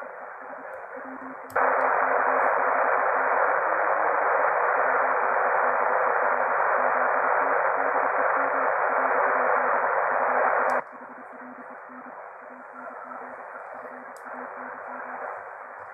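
Hiss from an Icom IC-R71E shortwave receiver's speaker, with a faint low tone keying on and off under it. About a second and a half in, the hiss jumps much louder with a click. About eleven seconds in, it drops back with another click as the bhi NEIM1031 DSP noise-cancelling unit is switched.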